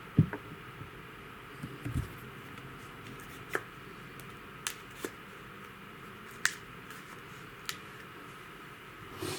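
Camcorder handling noise: sharp clicks and a couple of light knocks at irregular intervals, the loudest a knock right at the start, against faint room tone.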